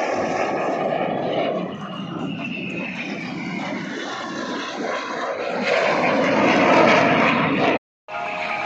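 Aircraft engines of a display flypast: a steady rushing noise with a falling whine, growing louder toward a peak near the end, then broken off by a short cut.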